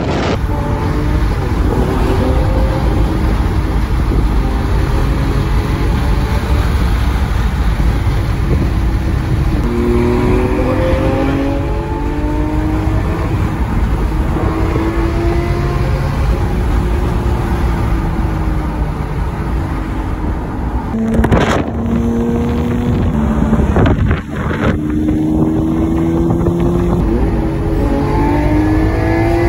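Lamborghini Aventador's V12 engine heard from inside the cabin at highway speed, over steady road and wind rumble. It rises in pitch several times as the car accelerates, with brief breaks at gear changes in the last third.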